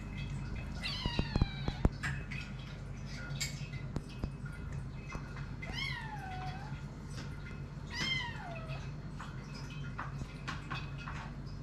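Hungry kittens meowing for food: three long meows, each starting high and falling in pitch, with a few sharp clicks around a second in.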